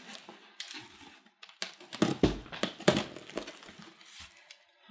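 Packaging being handled during unboxing: a cardboard shipping box and its wrapping rustling and crinkling as a pillow is pulled out. Several sharp crackles and knocks come about two to three seconds in.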